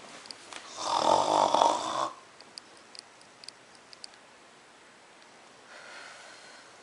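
A person makes one loud snoring sound lasting about a second, followed by a few faint clicks.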